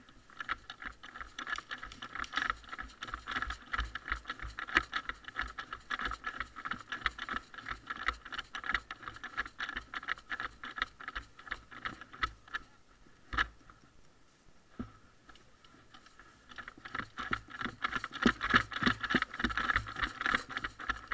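Rapid, irregular rattling and ticking of a head-mounted camera and the player's kit jostling as he runs over grass. It eases off for a few seconds past the middle, where one sharp knock stands out, then picks up again near the end.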